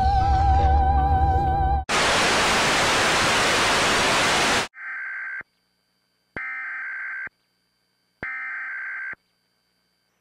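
Music cut off about two seconds in by a loud burst of static hiss lasting about three seconds. Then come three short bursts of Emergency Alert System SAME header data tones, each just under a second long, with gaps of about a second between them.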